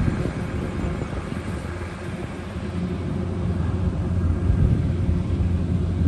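Kubota rice combine harvester running steadily, its engine making a low, even hum.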